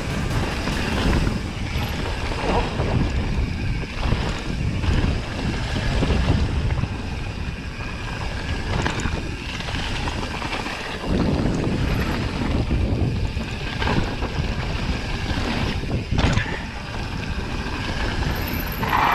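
Mountain bike riding fast downhill over loose gravel and rock: tyres crunching and the bike clattering over bumps, under heavy wind rumble on the camera microphone.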